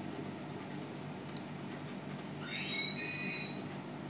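Faint clicks of a small flat screwdriver prying at the metal locking clips of a watch module, over a low steady hum. About halfway through comes a high squeak lasting about a second, rising briefly at its start.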